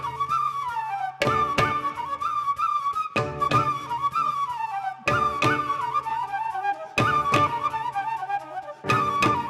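Raga-style ensemble music: a high, flute-like wind melody with ornamented phrases that slide downward, over a steady low drone. Pairs of sharp drum strokes come about every two seconds.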